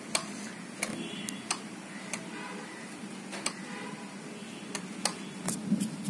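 About a dozen sharp plastic clicks at irregular intervals from the ride-on toy's foot-pedal accelerator switch being pressed and released over and over, over a faint steady hum. The switch is being tested and passes no voltage to the meter: it is faulty.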